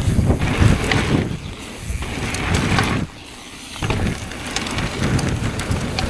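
Ride noise from a mountain bike on a dirt trail: wind buffeting the camera microphone over rumbling tyres, with scattered clicks and rattles from the bike. The rumble drops away briefly twice, about a second and a half in and again around three seconds in.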